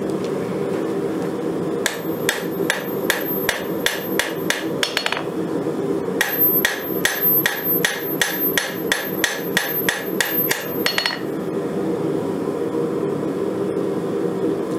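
Hand hammer striking red-hot Damascus steel on an anvil, drawing out the tang of a dagger billet. The blows come in two runs of about three a second, starting about two seconds in, with a short pause near the middle. The hammering stops about eleven seconds in.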